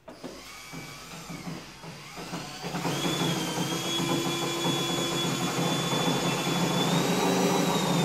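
A handheld electric power tool's motor running steadily with a high whine, getting louder over the first three seconds or so, then holding.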